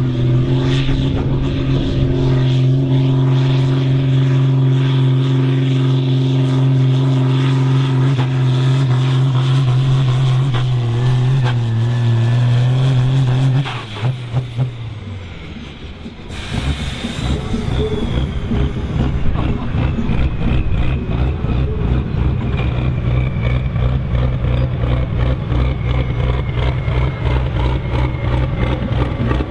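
Fendt Favorit 926's six-cylinder turbo-diesel running hard at steady, held revs under full load while pulling the weight sled, struggling against it. About 14 s in the note drops away. After a cut, the engine runs at low revs with a thin whistle slowly falling in pitch, as the turbo spools down.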